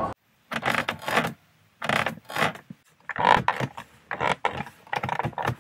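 Fingers scraping and rubbing on the hard plastic interior door trim of a 1995 Mercury Grand Marquis, in a series of short strokes with brief pauses between them.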